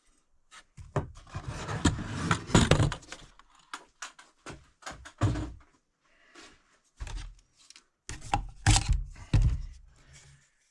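Handling noise of a cordless jigsaw and its plastic accessories being picked up and fitted: an uneven run of clicks, knocks and rustling, with two louder spells of clatter about two seconds in and near the end.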